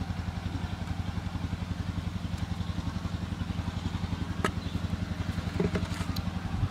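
A small engine running at a steady idle, pulsing about ten times a second, with a sharp click about four and a half seconds in.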